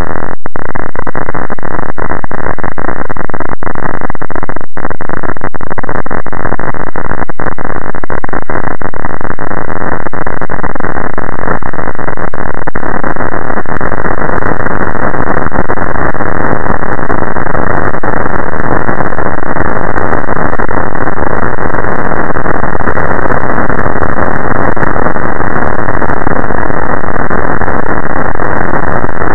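Very loud, harsh, distorted noise with nothing above about 2 kHz, like heavily overdriven audio. A few brief dropouts break it in the first several seconds, then it runs on unbroken.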